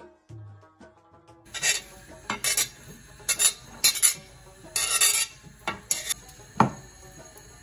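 Knife blade scraping across a glass cutting board in short, quick strokes, pushing chopped herbs off into a bowl, with one sharp knock near the end.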